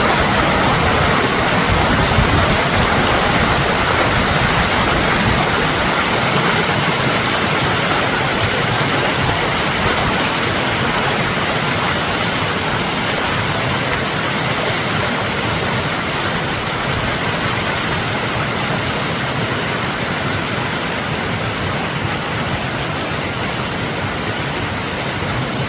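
Mountain creek running high with snowmelt, its water rushing steadily over rapids, easing slightly in level toward the end.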